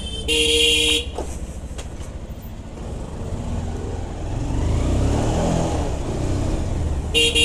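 Motorcycle horn honking once for under a second, then a short beep near the end. Between the two, the bike's engine and road rumble run low and swell a little midway as it speeds up.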